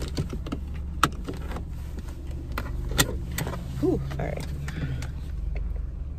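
Inside a car, a low steady engine hum from the car idling, with a few sharp clicks and rustles from handling in the seat, one about a second in and two around three seconds.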